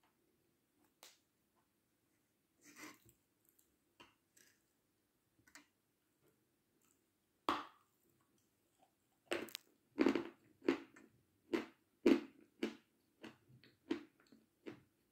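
Close-up biting and crunching on a lump of Seversky chalk. There are a few soft crunches, a sharp bite about halfway in, then a quick run of loud crunchy chews, about two a second.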